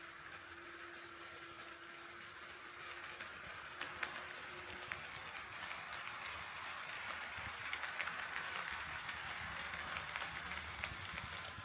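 HO scale model train running on KATO Unitrack sectional track, with a steady running hiss and scattered sharp clicks as the wheels cross the rail joints. It gets louder after the first few seconds as the train draws nearer.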